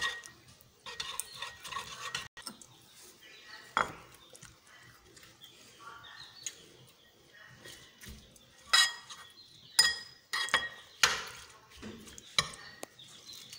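Shredded cabbage being dropped by hand into a bowl of yogurt dressing, then stirred in with a steel spoon. In the second half the spoon clinks sharply against the bowl about five times.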